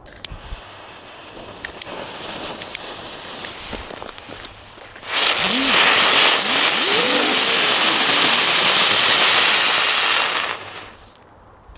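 A ring of small F1 ground fireworks (crackling fountains) going off: low hissing with scattered clicks for about five seconds, then a loud, dense crackling and hissing with a faint wavering hum that rises and falls, dying away about a second before the end.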